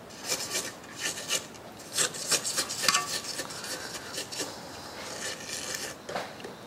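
Silicone spatula scraping the inside of a stainless steel stand-mixer bowl and the flat beater in quick, irregular strokes, thinning out after about three seconds.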